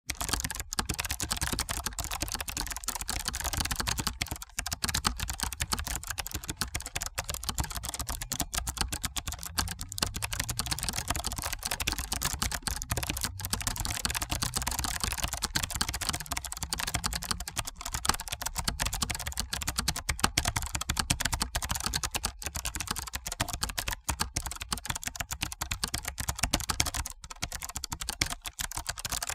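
Fast continuous typing on an old computer keyboard, a dense stream of key clicks with only brief pauses.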